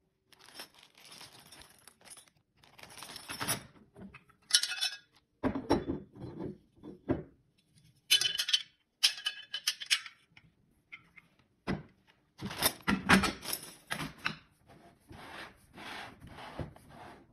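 Handling noise: metal mounting brackets clinking and scraping against each other, a plastic bag rustling, and hands rubbing and knocking on a fiber-optic pedestal housing. The sounds come in irregular short spells with gaps, and a sharp click lands a little before the last third.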